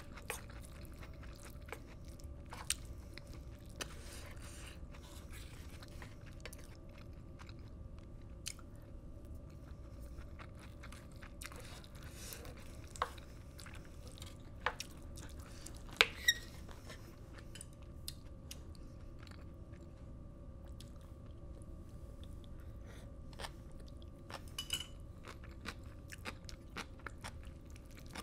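Close-miked chewing of black bean sauce fried rice, with scattered sharp clicks of a wooden spoon against the pan, the loudest about 16 seconds in. A faint steady hum lies underneath.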